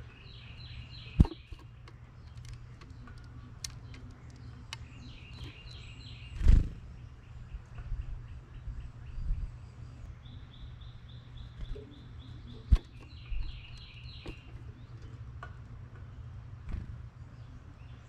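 Small birds chirping at a feeder in quick series of repeated high notes, several times over. Three sharp knocks stand out, the loudest about a third of the way in, over a steady low hum.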